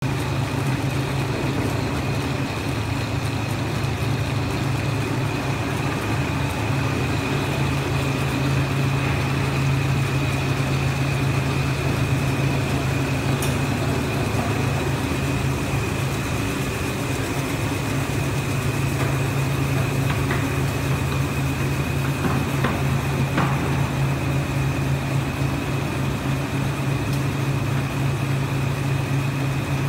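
Automatic folder gluer with crash-lock bottom unit running continuously: a steady machine hum from its motors, belts and rollers, with a thin high whine over it. A few light clicks sound about two-thirds of the way through.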